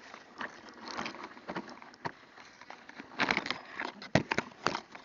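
Irregular rustling and scraping crackles that grow louder and busier from about three seconds in.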